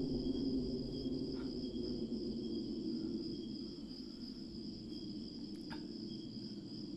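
Crickets chirring steadily at two high pitches over a low drone that fades about halfway through, with a couple of faint ticks.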